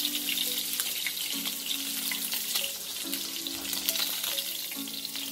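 Small halalu (juvenile bigeye scad) frying in hot oil in a shallow pan: a steady sizzle. Background music with slow chord changes plays underneath.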